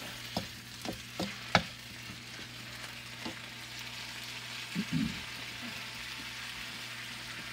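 Broccoli, carrots and squash sizzling steadily in an electric wok, with a wooden spoon knocking and scraping against the pan several times in the first two seconds as they are stirred. A single click comes a little after three seconds, and a soft thump about five seconds in.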